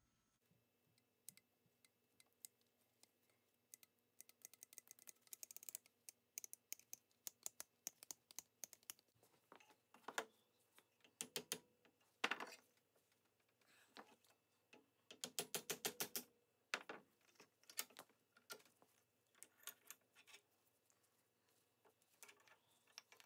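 A wooden block rubbed back and forth against steel needle-nose pliers clamped in a bench vise, in bursts of quick strokes, several a second, starting a few seconds in.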